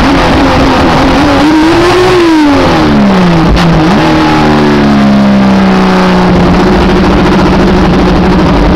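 Race car engine heard loud from inside the cockpit over road and wind noise. The revs climb briefly, then drop steeply as the car slows, with a sharp rev jump a little under four seconds in, typical of a downshift. They then ease down and settle to a steady, lower drone.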